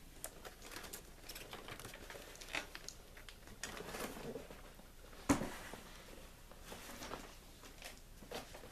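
Large cardboard toy box being handled and turned around on a tabletop: faint scuffing and rustling of cardboard and its plastic window, with a single sharp knock about five seconds in.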